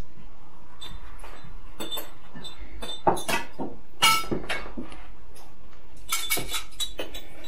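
Plates, cutlery and glassware clinking as food is served at a dining table, with two sharper clinks about three and four seconds in.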